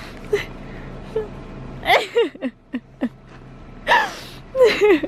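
A woman's voice in a few short, high, wavering exclamations and laughs with no clear words, over a steady low hum.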